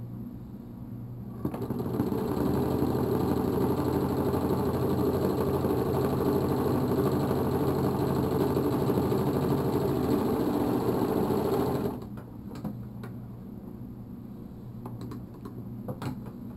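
Old Westinghouse electric sewing machine running at a steady speed for about ten seconds as it stitches fabric, its motor driving the hand wheel through a small rubber tire. It starts about a second and a half in and stops abruptly, followed by a few faint clicks of handling.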